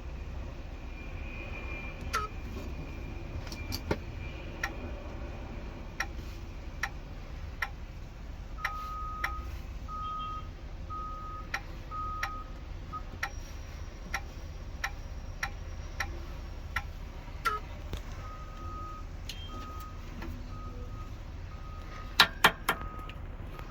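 Steady ticking, a little faster than one tick a second, over a low steady hum, with two runs of short, evenly spaced electronic beeps at a single pitch.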